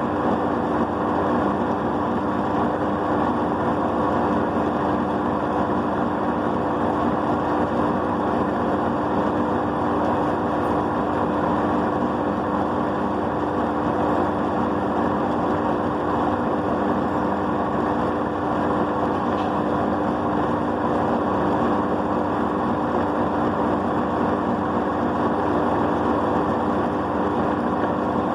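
Ultra Gold+ tabletop wet grinder running steadily: an even motor hum with two steady tones over the rumble of the rotating drum and grinding stones.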